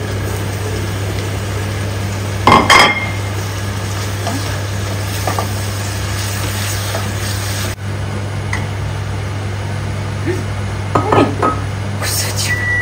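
Diced chicken and turkey frying in a stainless steel pot with onion, a steady sizzle under a low hum, while a wooden spoon stirs it. A loud clatter against the pot about two and a half seconds in, and a smaller flurry of knocks near eleven seconds.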